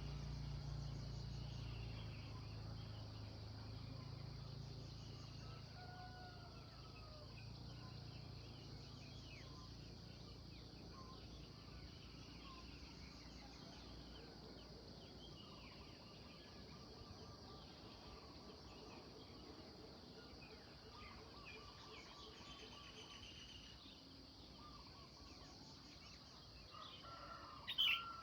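Morning bird chorus: many birds chirping faintly and sporadically over a steady high hiss, with a low rumble fading out over the first few seconds. A single louder, brief call stands out near the end.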